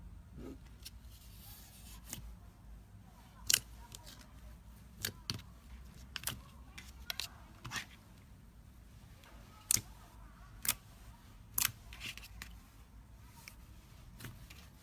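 Slime being pressed and played with by hand, giving sharp, irregular pops and clicks, about nine of them louder than the rest.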